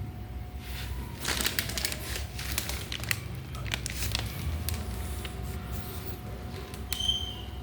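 Plastic packaging crinkling and crackling as it is handled, with sharp crackles for a few seconds that then die away.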